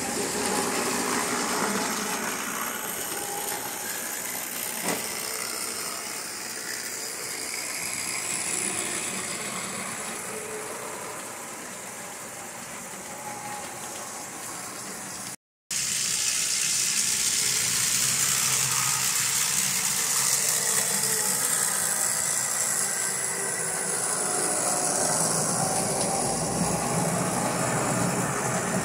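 O-scale model trains running on a layout: a steady whir of motors and gearing with the rattle of wheels over the rails. The sound cuts out briefly about halfway through, then carries on.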